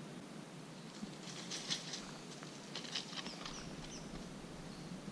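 Faint crunching footsteps on a dry dirt and leaf-litter track, with a few faint, high bird chirps.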